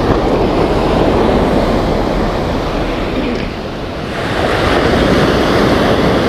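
Rough surf breaking and washing up the beach, easing a little about halfway through and swelling again, with wind buffeting the microphone.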